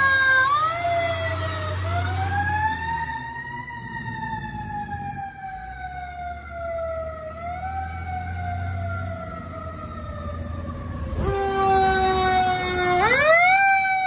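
Fire apparatus siren wailing, its pitch climbing and then sliding slowly down several times over a low engine rumble. About eleven seconds in, a second, lower siren cuts in and winds up sharply near the end.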